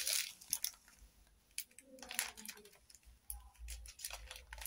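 Faint light clicks and plastic rustling from small resealable bags of diamond-painting drills being handled.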